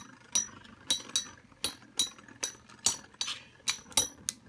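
Two Beyblade spinning tops clashing in a plastic stadium, giving sharp metallic clinks about two or three times a second.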